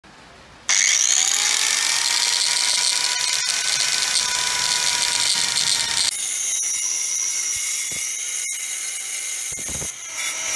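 Angle grinder converted to a circular saw switching on less than a second in, its whine rising in pitch as the motor comes up to speed, then running steadily. The sound changes about six seconds in and runs on steadily.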